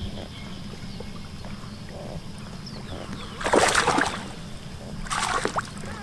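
A hooked largemouth bass splashing at the surface beside a bass boat while being reeled in: two loud splashy bursts, one about three and a half seconds in and a shorter one about five seconds in, over a steady low hum.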